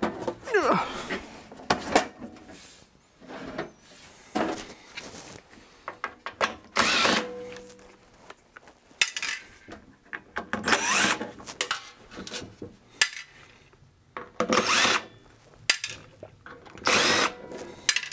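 Cordless impact driver run in short bursts every couple of seconds, backing screws out of a metal instrument chassis.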